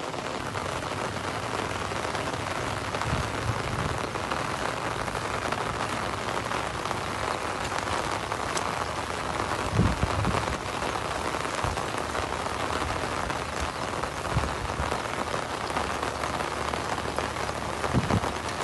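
Heavy rain falling steadily on standing floodwater: a dense, even hiss, with a few brief low thumps near the middle and near the end.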